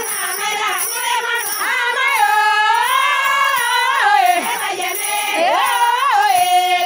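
Women singing a traditional song, with long, wavering high notes held for a couple of seconds at a time, over a steady high jingling.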